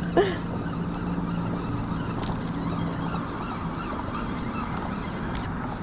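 A single short honk-like call that falls in pitch, a fraction of a second in, over a steady background hiss with a few faint ticks later on.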